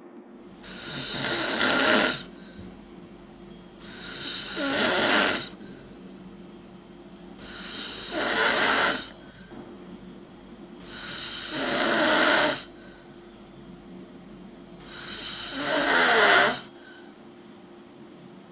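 A person snoring: five long snores about every three and a half to four seconds, each building up louder and then cutting off.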